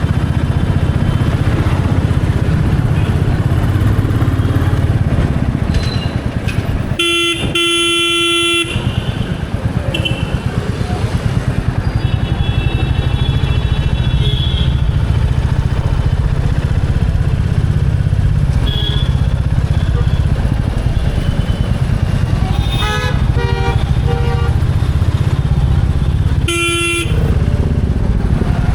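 Royal Enfield Bullet 350's single-cylinder engine running steadily under way, a low even thump, while horns honk in traffic: a loud horn blast lasting about a second and a half some seven seconds in, another shorter one near the end, and fainter toots and a few quick beeps in between.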